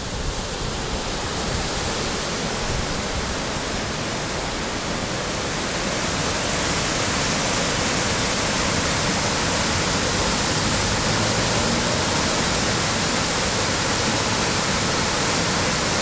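River water rushing over rocks in a steady, even hiss, getting a little louder about six seconds in.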